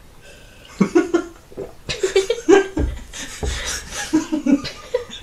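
People laughing in broken, breathy bursts that break out about a second in, with a few low bumps around the middle.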